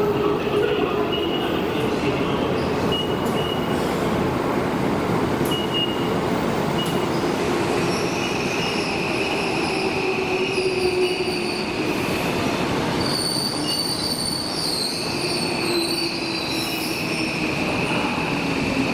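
Hibiya Line subway train running through a station, its wheels squealing in several sustained high tones over a steady rumble.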